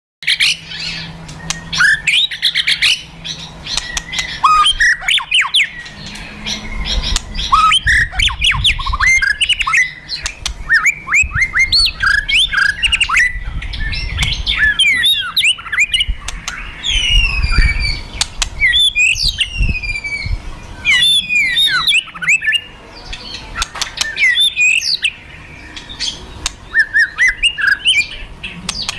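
A fighting white-rumped shama (murai batu) calling hard: fast crackling clicks (kretekan) mixed with sharp, loud whistled bursts (tembakan) and quick rising and falling sweeps, typical of a shama in an aggressive, worked-up state. Some low thuds sound under the calls now and then.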